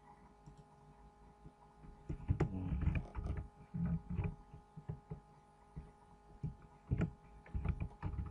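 Computer keyboard being typed on, with irregular key clicks and dull thuds, over a steady electrical hum.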